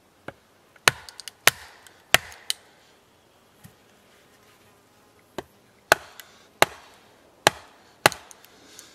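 Batoning: a wooden baton knocks down on the spine of a blade set into a short log, splitting the wood. About a dozen sharp knocks, a quick run in the first two and a half seconds, a pause of about three seconds, then steady strikes roughly every half second to second.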